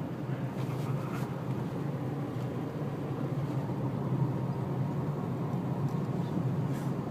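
Car driving with the passenger window open: steady road and wind noise heard from inside the cabin.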